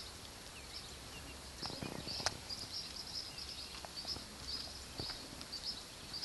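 Faint birds chirping high and repeatedly, several chirps a second in irregular clusters. A few faint knocks come about two seconds in, ending in one sharper click.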